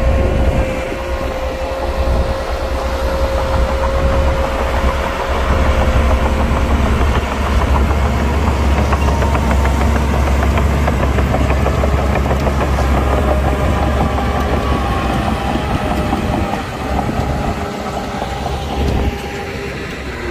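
Heavy diesel earthmoving machinery running, with a deep engine rumble under a steady high-pitched whine that fades out after about six seconds; fainter whines that shift in pitch follow, and the noise drops a little near the end.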